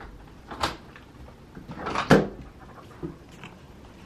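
A few short knocks and bumps, the loudest about two seconds in.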